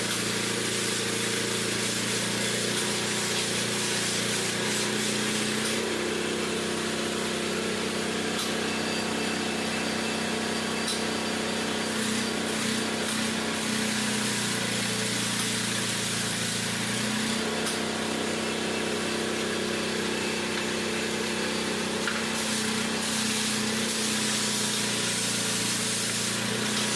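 An engine or motor running steadily, its hum shifting in pitch a few times.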